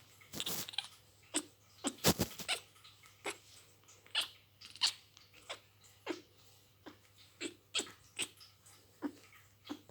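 A kitten making a string of short, odd noises instead of meows, about two a second, with a louder noisy burst about two seconds in.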